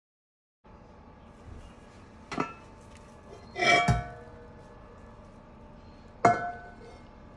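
Cast iron cookware clanking on the oven rack as the lid is lifted off a baking sourdough loaf: a clink about two seconds in, a longer metal clatter just before four seconds, and a sharp clank near the end, each ringing briefly.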